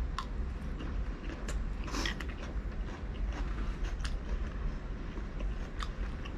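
A person biting and chewing food close to the microphone, with scattered short mouth clicks and a steady low hum underneath.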